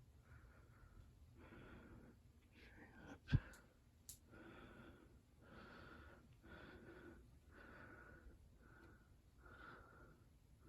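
Near silence with faint breathing close to the microphone, about one breath a second, and a single sharp knock a little over three seconds in.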